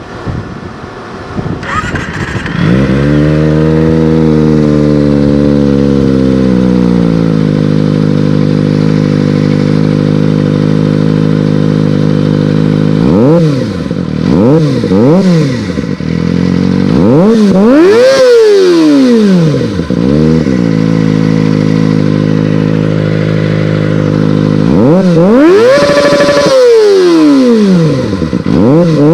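Kawasaki ZX-25R's 249 cc inline-four with an R9 Zeta R exhaust, starting up a couple of seconds in. It idles high at first and settles to a steady idle. It is then revved in a series of short throttle blips, with a longer rev held high and more blips near the end.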